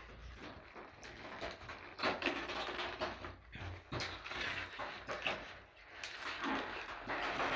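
Irregular rustling, crinkling and a few sharp clicks of packaging handled and torn open by hand.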